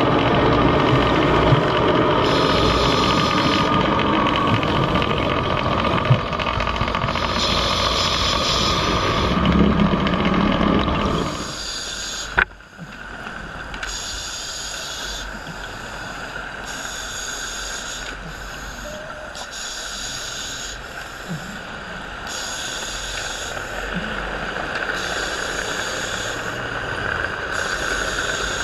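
Underwater scuba breathing: the hiss of a diver's regulator and exhaled bubbles, coming back every couple of seconds over a steady low rumble. About twelve seconds in, a click and a drop in level mark a change of recording, and the breaths go on more quietly.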